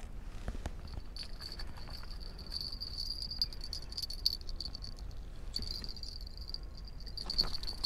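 An insect trilling: a thin, steady high note that starts about a second in, breaks off briefly past the middle and comes back, over a low steady rumble.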